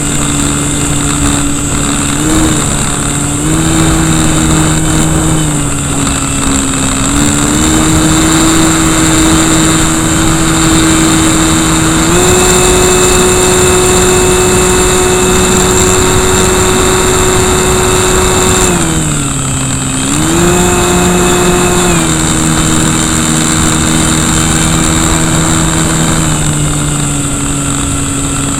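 Brushless electric motor and propeller of an RC Cessna, heard close up from beside the motor, whining steadily and stepping up and down in pitch with the throttle. About nineteen seconds in the pitch drops sharply as the throttle is pulled back, then climbs again a second later.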